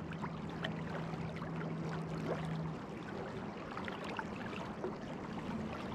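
River current flowing and lapping close by, with many small splashes and trickles. A faint steady low hum stops a little under three seconds in.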